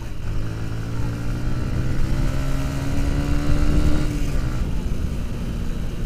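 Motorcycle engine pulling hard at speed, its note climbing slowly as the bike runs up to about 121 km/h, over steady wind rush on the microphone. A little after four seconds in the throttle closes and the engine note drops away.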